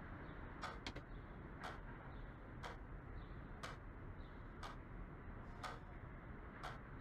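A clock ticking slowly, about once a second, over a faint steady hiss of room tone.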